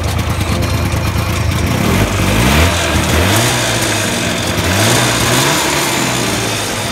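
Subaru Sambar's 360cc air-cooled two-stroke twin engine idling, then revved up and let fall back twice with the throttle worked by hand at the carburetor.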